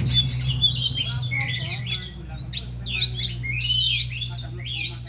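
Several oriental magpie-robins (kacer) singing, with a dense run of rapid chirps, whistled glides and harsher notes. A steady low hum runs underneath.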